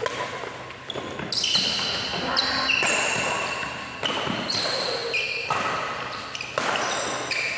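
Badminton rackets striking the shuttlecock in a doubles rally: a string of sharp smacks about a second apart, echoing in a large hall, with short high squeaks from shoes on the court between them.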